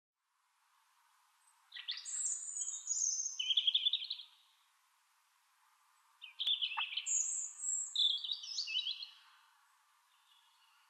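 A songbird singing two separate song phrases, each a couple of seconds long, starting high and dropping into lower trilled notes, over faint outdoor background hiss.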